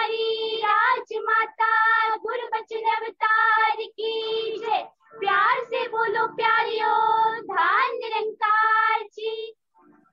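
A high voice singing a melody, with long held notes and slides, which stops shortly before the end.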